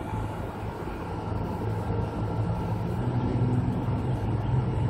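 2014 York heat pump outdoor unit running: a steady hum from its Bristol R410A reciprocating compressor and condenser fan, slowly growing louder. The compressor is sweating all over, which the owner takes for an overcharge with liquid getting back to the compressor.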